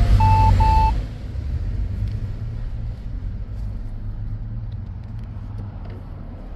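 Car driving, a steady low rumble of engine and road noise heard from inside the car, louder for the first second. Two short electronic beeps sound at one steady pitch in that first second.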